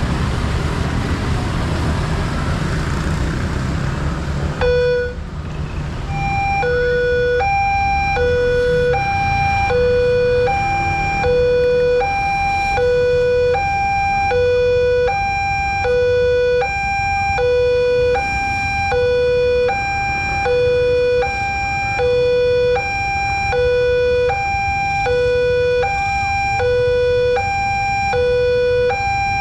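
About five seconds of loud rushing noise stops abruptly. Then a railway level-crossing warning siren starts, alternating evenly between a low and a high tone, each held about three-quarters of a second. The siren warns that a train is about to depart and that the barrier is closing.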